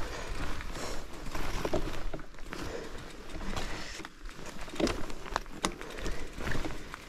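Mountain bike riding over rough, uneven ground: steady tyre and trail noise with frequent knocks and rattles from the bike, and a few sharp clacks about five seconds in.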